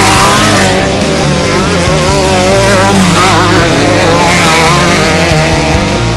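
Off-road race vehicle engine running hard, its pitch rising and falling continuously with the throttle.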